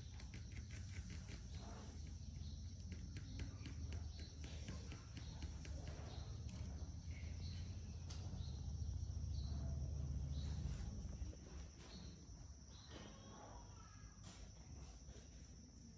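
Quiet background ambience: a steady high-pitched drone, of the kind insects make, over a low rumble that swells in the middle and drops off about eleven seconds in, with a few faint short sounds scattered through it.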